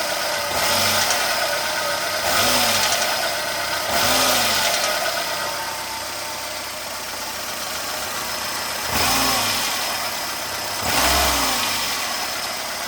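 Renault Logan 1.6 8-valve engine revved in five short throttle blips, settling back to idle between them, with a metallic knocking noise from inside the engine as the revs rise and fall. The cause is unknown to the owner; one suggestion is the oil pump.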